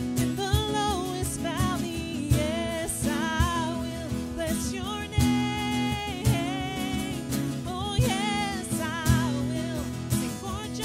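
Live worship band playing a song: a woman sings lead over strummed acoustic guitars and a cajón beat.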